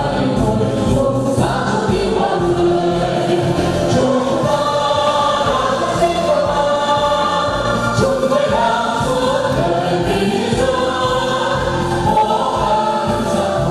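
Music with a choir singing, sustained sung notes over a steady accompaniment.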